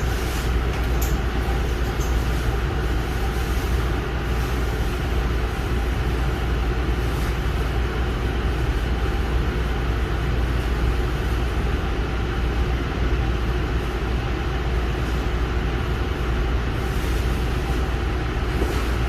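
Steady low rumble and hum inside a Tobu Railway commuter train car, with a few faint steady tones over an even noise.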